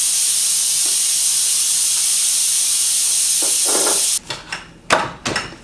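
A pressurised spray hissing steadily for about four seconds, then cutting off sharply, followed by a few short clicks and knocks.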